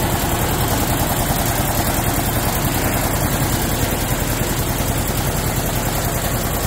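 A large shop air compressor running steadily, a loud, even mechanical drone with a low hum underneath.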